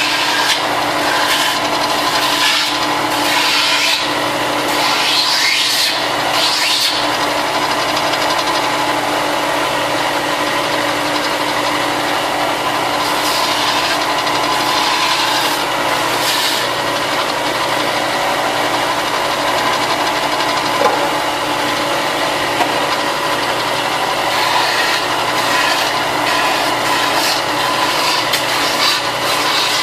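Power sander running steadily with a constant motor hum, as plastic armor pieces are pressed against it, adding an uneven rasping that rises and falls in short spells.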